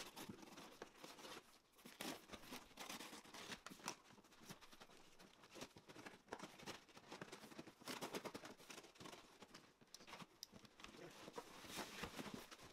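Faint, scattered scratching and rustling of pocket-knife blades slicing through packing tape and scraping a cardboard box.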